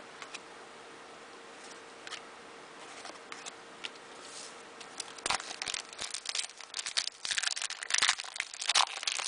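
A few light taps of trading cards being handled, then, about halfway through, the foil wrapper of an NBA Hoops card pack crinkling and tearing as it is opened.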